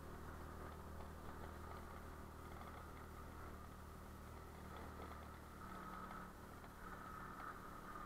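Small motorbike engine running steadily at low speed, a faint low hum with a thin whine above it that gets a little stronger near the end.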